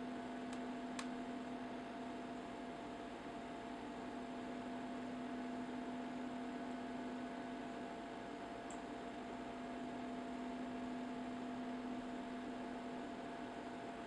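Steady low electrical hum over faint hiss, with a couple of faint ticks near the start: room tone, with no beep.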